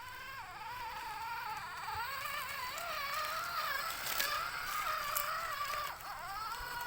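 Electric motor and gearbox of a radio-controlled off-road toy car whining. The pitch wavers up and down as the car speeds up and slows, dipping briefly about six seconds in.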